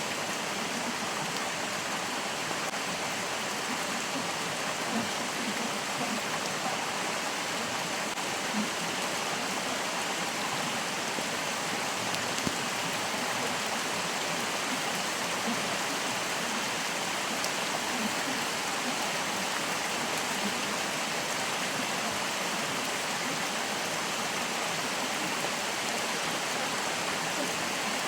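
A stream's water flowing, a steady even rush that holds unchanged throughout.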